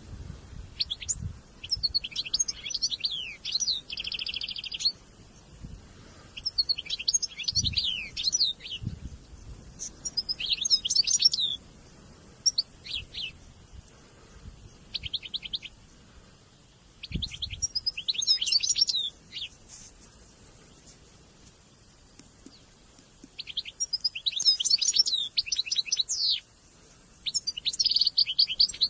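Songbird singing in short bursts of quick, high chirps and trills, repeated every few seconds with pauses between, including a buzzy rattle about four seconds in.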